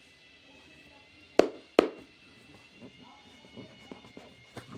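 Two sharp clicks less than half a second apart, about a second and a half in, followed by a few fainter taps: hands handling the laser pointer and its packaging.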